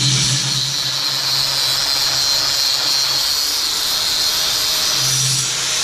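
Angle grinder grinding slag off the torch-cut edge of a steel plate, the wheel on the metal giving a steady, loud, high hiss over the motor's hum.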